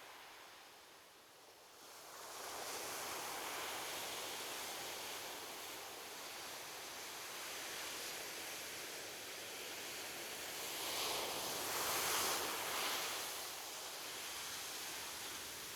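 Ocean waves washing onto a beach. The surf swells in about two seconds in and runs on as a steady wash, and a louder wave breaks about eleven seconds in.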